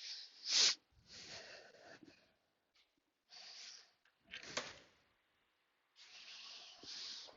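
A person breathing hard and sniffing close to the microphone in a series of short noisy breaths about a second apart, with a sharp click about four and a half seconds in.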